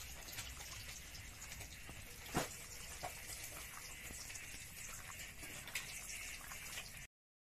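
Hands squishing raw chicken pieces through a wet, oily spice marinade in a steel bowl: a squelching mix of small clicks. One sharp knock comes about two and a half seconds in, and the sound cuts off abruptly near the end.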